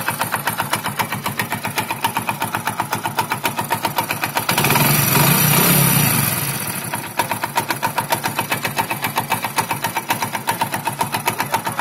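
Hero Splendor Plus's single-cylinder four-stroke engine idling with an even, rapid beat, and swelling louder for about two seconds midway as if briefly revved. The owner says it is not the bike's normal sound, with a strange noise coming from inside the engine that he takes as the sign that the engine needs repair work.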